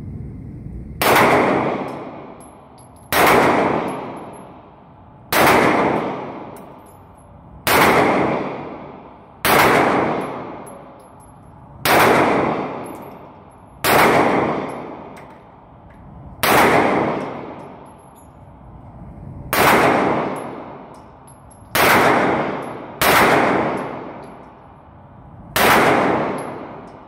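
A 9mm pistol fired twelve times in slow, single shots, about one every two seconds. Each shot is a sharp crack followed by a long echoing decay off the walls of the indoor range.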